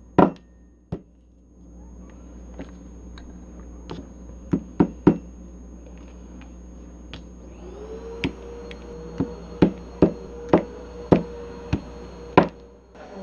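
Small wooden mallet knocking Play-Doh against a tabletop: a dozen or so irregular strikes, coming faster in the second half. A steady hum comes in about halfway through.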